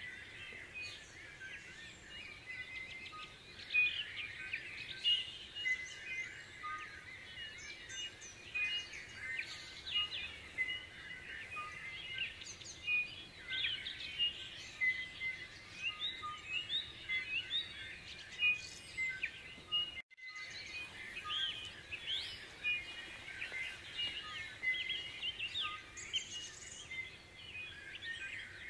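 Dawn chorus: many birds singing at once, a dense overlapping mix of chirps, trills and short repeated whistles. It drops out for a moment about two-thirds of the way through, then carries on.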